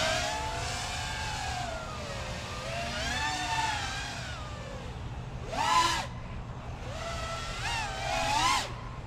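FPV freestyle quadcopter's motors and propellers whining in flight, the pitch rising and falling with throttle, with two sharp throttle punches about six seconds in and near the end.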